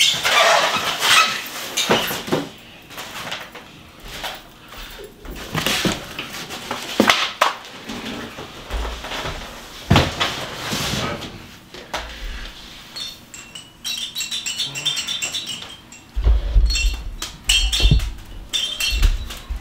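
Unboxing noises: cardboard and moulded plastic packaging being handled, with rustling, scattered knocks and light clatter of plastic parts. Near the end come dull low thumps.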